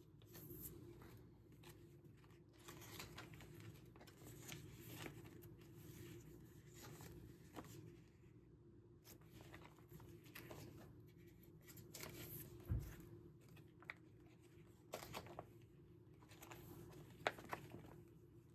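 Faint rustling and crinkling of plastic binder sleeves and paper items being handled, with scattered soft clicks and a few sharper taps in the second half.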